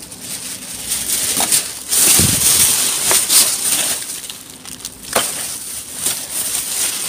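Thin plastic carrier bag rustling and crinkling as gloved hands pull it open and rummage through the items inside, with a couple of sharp knocks of objects shifting.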